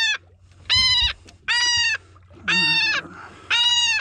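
A gull giving loud, repeated distress calls, about one a second, each a short held cry. It is being handled while line or a hook is freed from its feathers.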